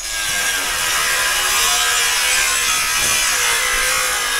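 Battery-powered power tool running steadily under load, boring or driving a fastener into a wooden log post through a steel strap, with a rattling mechanical sound.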